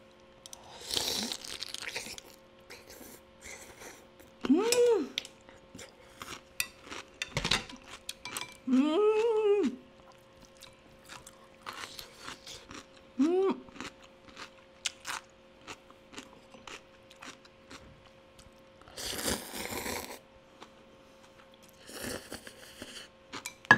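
Close-up crunching and chewing of cucumber kimchi, with a few short "mm" hums of enjoyment. Near the end come two loud slurps of somen noodles.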